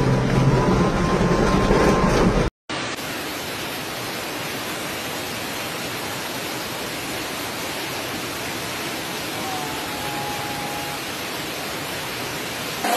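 Torrential rain and rushing floodwater: a dense, even hiss that holds steady for about ten seconds. It starts after an abrupt cut a couple of seconds in; before that, music plays over the sound of traffic driving through rain.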